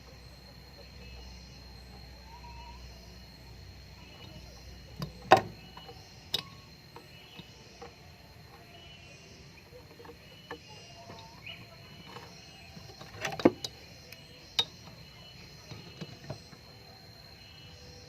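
Scattered sharp knocks and clicks of tools and metal parts being handled during refrigerator condenser pipe work. The loudest knock comes about five seconds in, and a cluster follows around thirteen to fifteen seconds, over a faint steady high whine.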